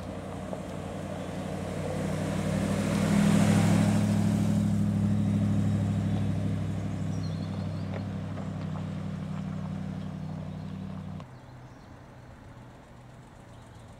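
Triumph Stag's V8 engine running at low speed as the car drives up and past, a steady low engine note that is loudest about three to five seconds in and fades as it pulls away. The sound drops off abruptly about eleven seconds in, leaving a quieter background.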